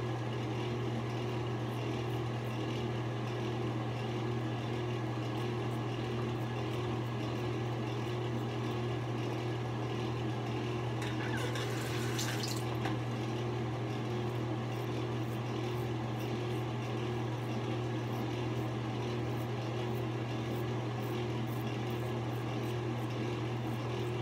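A steady low hum with a faint hiss, unchanging throughout, and a brief burst of higher hiss about eleven seconds in.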